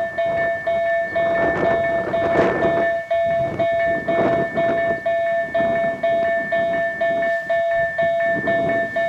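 Railroad level-crossing warning bell ringing in a fast, even rhythm of about two and a half strikes a second, signalling that a train is approaching. An uneven rushing noise runs underneath.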